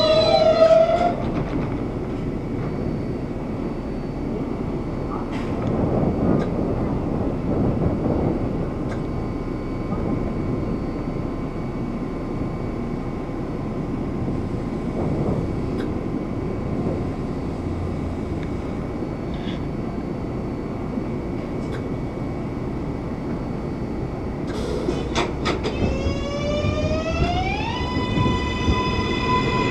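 R143 subway train with Bombardier MITRAC propulsion: its motor whine falls away in the first second as the train comes to a stop. It then stands with a steady rumbling hum. Near the end the propulsion starts up with a rising whine, in several tones that climb and then level off, as the train pulls out.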